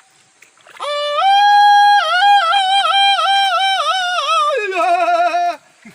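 A single high voice singing a wavering, ornamented melody with quick yodel-like breaks in pitch on long held notes. It steps down to a lower note near the end.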